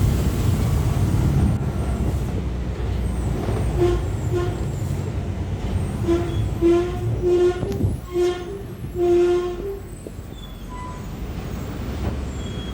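Iveco S170 bus's FPT NEF six-cylinder inline diesel engine running with a steady low rumble. About eight short pitched beeps sound between roughly four and ten seconds in, and the engine noise drops a little after about eight seconds.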